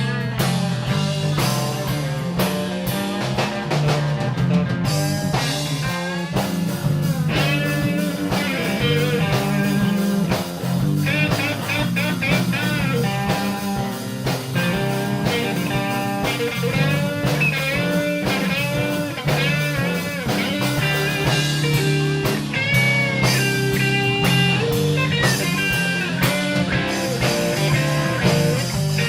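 Live blues band playing a G minor shuffle: a lead electric guitar plays bent, sliding notes over bass and a drum kit.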